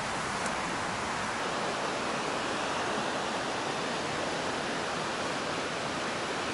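Steady, even rushing noise, like flowing water, with no distinct events.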